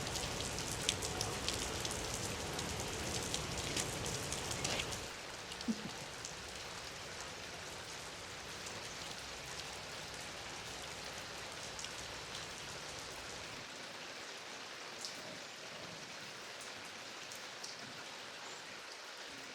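Rain falling steadily, with individual drops ticking on a surface; it turns softer about five seconds in.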